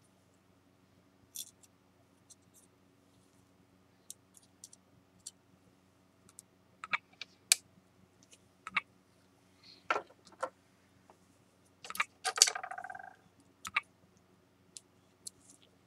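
Small ceramic shards and hand tools clicking and tapping against a glass-topped tray as they are picked up and set down, in scattered light clicks with a brief rattling scrape about three quarters of the way through.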